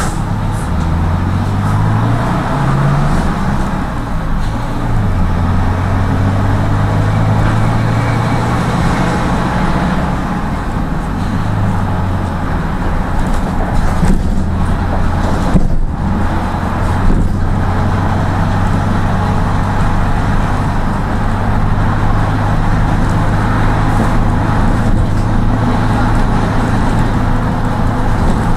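Route-taxi minibus heard from inside its cabin, the engine pulling away through the gears, its pitch climbing and dropping back at each shift during the first dozen seconds, then running steadily at cruising speed with road noise.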